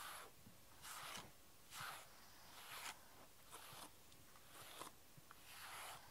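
Wire slicker brush raking through a cat's thick fur in short, soft, scratchy strokes, about one a second, pulling out loose shedding coat.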